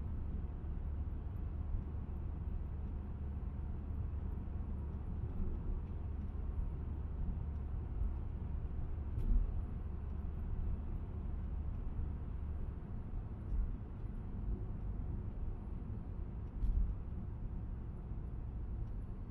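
Steady low rumble of a car driving on a country road, heard from inside the car: tyre and engine noise. A few brief knocks, about three times, as the wheels go over bumps in the cracked asphalt.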